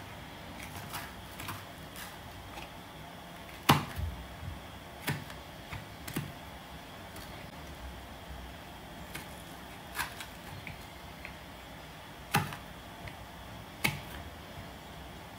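Kitchen knife tapping on a cutting board while a Scotch bonnet pepper is cut: scattered sharp taps at irregular intervals, a second or more apart, the loudest about four seconds in.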